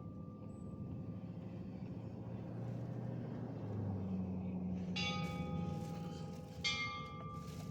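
Mission church bell tolling: the ring of a stroke just before fades away, then two fresh strokes come about a second and a half apart, near the end, each ringing on. A low rumble lies underneath throughout.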